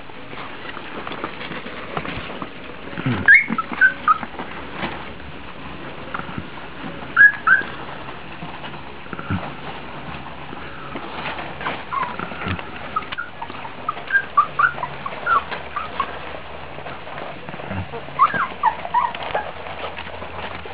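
One-month-old Chesapeake Bay Retriever puppies giving short, high squeaks and whimpers in several scattered bouts.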